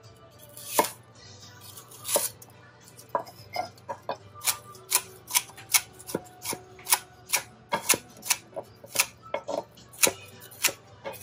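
Chef's knife chopping celery on a wooden cutting board. A couple of separate knocks come first, then steady chopping, about two and a half strokes a second, from about three seconds in.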